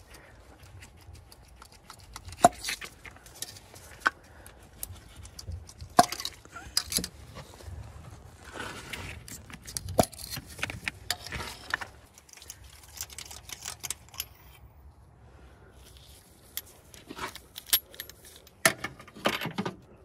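Ratchet, socket extension and spark plug wire boots clicking and clinking against the engine as the old spark plugs are taken out, with scattered sharp clicks and short stretches of rustling between.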